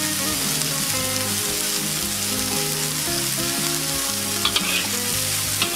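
Bean sprouts, tofu and shiitake mushrooms sizzling steadily in a hot wok as a metal spatula stirs them, with a few sharp scrapes of the spatula on the wok near the end. Soft background music plays underneath.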